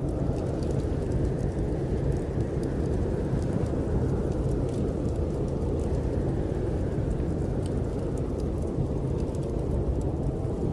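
Snowstorm wind blowing in a steady low rumble that swells and eases every few seconds, with scattered faint crackles of a wood fire.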